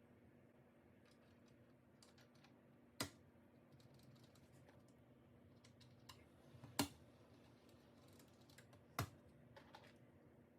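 Sparse clicks and taps from a mechanical keyboard and its parts being handled, with three sharper clicks standing out among faint ticks.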